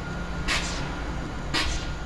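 Stationary BB 26000-series electric locomotive (BB 26230) standing at the platform: a steady low hum with a thin high whine, and two short sharp hisses about a second apart.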